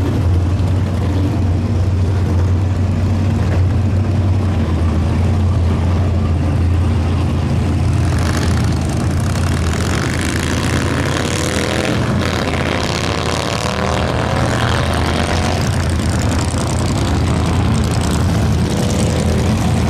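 Two vintage Harley-Davidson V-twin motorcycles idle at the start line with a deep, steady rumble. About eight seconds in they launch and accelerate away, the engine pitch rising as they pull down the track.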